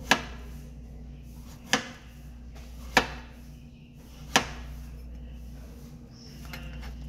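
A kitchen knife slicing through papaya and knocking on a plastic cutting board: four sharp knocks, roughly a second and a half apart, over a steady low hum.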